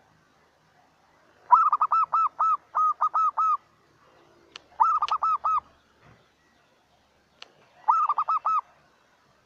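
Zebra dove singing close by: three bursts of rapid, staccato cooing notes, the first the longest, the next two shorter. A few sharp clicks fall between the bursts.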